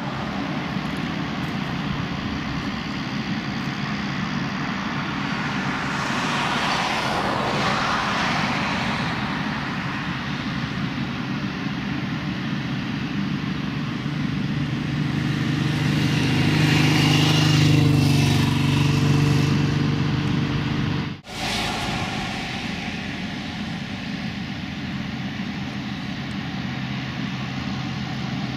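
Fairchild SA227-AC Metro III's twin Garrett TPE331 turboprop engines running as the aircraft taxis: a steady drone that swells louder for a few seconds past the middle, then cuts out for a split second.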